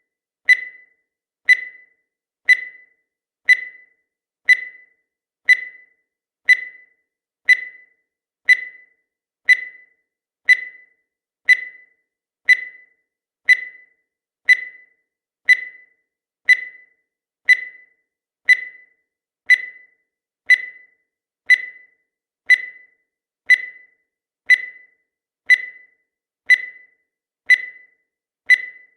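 Countdown timer sound effect: a short, high-pitched electronic beep once every second, each one fading quickly, marking off the seconds at an even pace.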